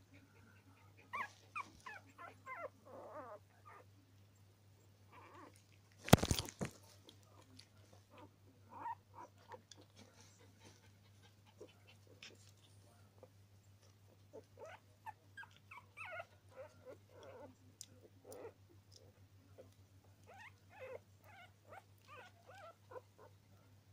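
Norwich terrier puppies giving many short, high squeaky calls as they crawl over and nuzzle one another. A brief loud knock comes about six seconds in.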